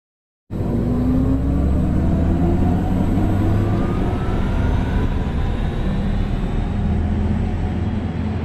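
Audi e-tron GT electric car driving, a steady rumble of road and drive noise with a faint electric whine that rises in pitch as it speeds up. It begins after about half a second of silence.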